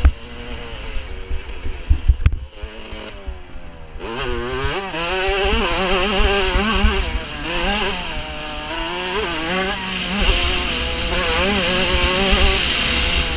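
Motocross bike engine heard from the rider's helmet camera. The throttle is shut briefly about two seconds in, with a couple of low thumps. From about four seconds in the engine revs up and down through the gears as the bike accelerates, with wind buffeting the microphone.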